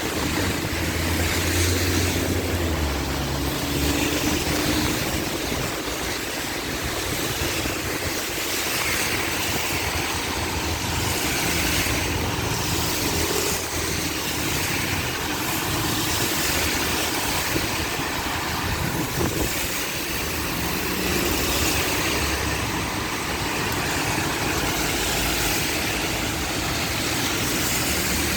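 Heavy rain pouring down in a dense, steady hiss, with the low rumble of motor vehicle engines running underneath, strongest in the first few seconds.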